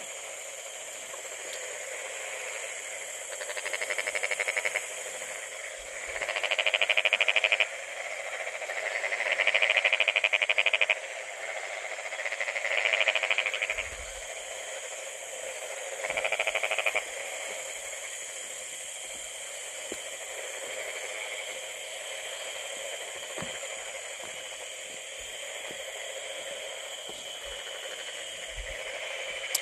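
Frogs calling: five loud trilled calls, each one to two seconds long and a few seconds apart in the first half, over a steady high-pitched background chorus.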